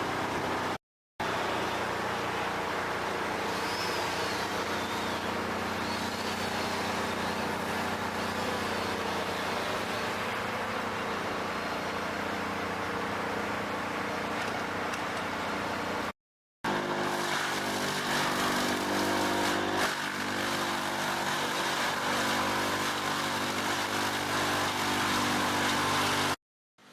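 Machine engines running steadily, broken by two short dropouts to silence at hard cuts between clips, with a different engine sound after each cut.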